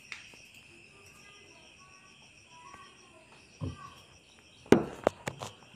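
Crickets chirring steadily in the background. A knock comes about three and a half seconds in, then a quick cluster of sharp clicks and knocks near the end, from dishes and a spoon being handled on the table.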